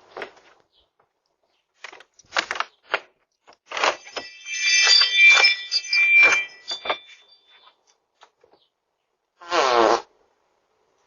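A person farting, picked up by a Ring video doorbell's microphone. Short scattered noises and a louder few seconds of mixed noise with a thin whistling tone in the middle are followed near the end by a short, low fart blast.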